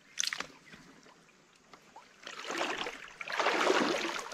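Water splashing and sloshing: a brief splash just after the start, then two longer stretches of splashing in the second half, the later one the loudest.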